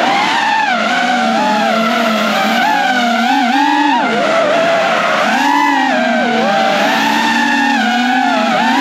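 FPV quadcopter's motors whining, the pitch rising and falling continually as the throttle is worked.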